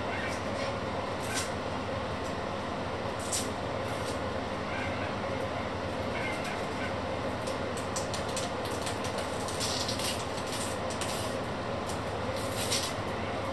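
Steady rushing background noise, with a few brief crinkling rustles from something being peeled by hand.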